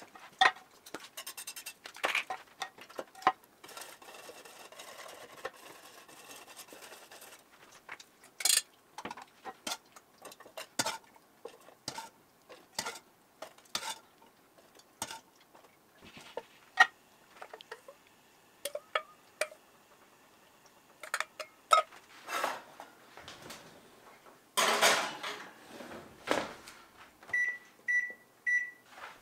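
Metal utensils clinking and scraping against a skillet and a metal muffin-top pan as cooked egg is lifted out and ground meat is spooned into the cups, with a louder rush of noise lasting about two seconds near the end. Then three short beeps from an over-the-range microwave's keypad.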